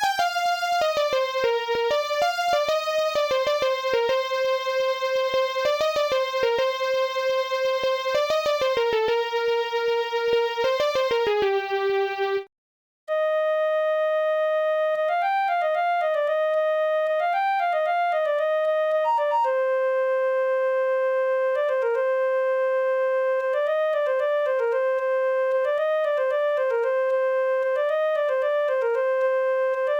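Nokia phone ringtones in Indian Bollywood tunes. A single-line electronic melody over a ticking beat ends about twelve seconds in, then after a brief silence a second tune starts, a clean synth-like melody without the beat.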